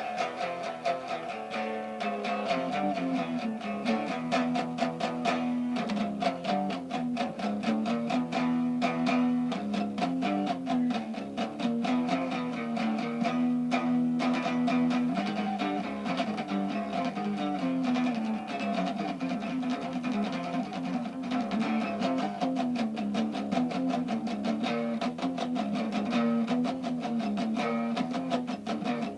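Guitar music: a continuous passage of plucked notes played in quick succession, with no speech.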